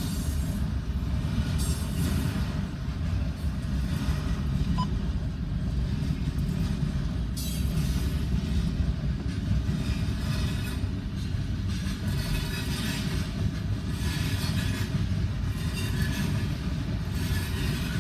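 A freight train rolling past: a steady low rumble of wheels on rail, with irregular bursts of higher rattling noise.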